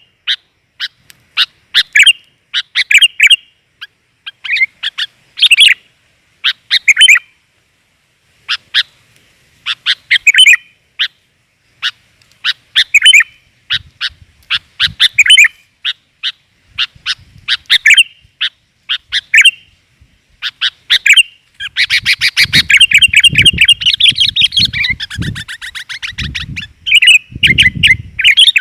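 Sooty-headed bulbul (kutilang) calls, played loud as a lure: short, bright chirping phrases repeated with pauses between them. About 21 seconds in they run into a long, rapid chatter lasting several seconds, with low thumps beneath it near the end.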